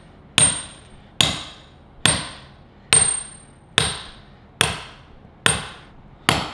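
Hammer blows driving a steel wedge anchor down into a drilled hole in a concrete floor: eight strikes at an even pace, a little under one a second, each with a short high metallic ring. The anchor is being set until it seats on its washer.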